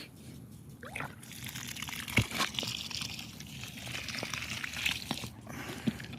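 Water from a lawn irrigation sprinkler running and spattering as the repaired sprinkler is tested, with many small ticks and one sharp knock about two seconds in.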